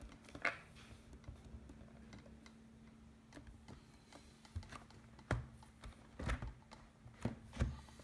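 Scattered sharp clicks and knocks from a white plastic MacBook being handled and its lid being shut, over a faint steady hum. One click comes about half a second in, and a cluster of knocks follows in the last three seconds.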